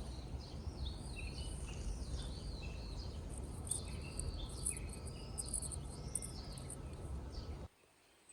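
Birds calling with many short, arching chirps, with a faint high chirring of insects, over a steady low outdoor rumble. It all cuts off abruptly near the end.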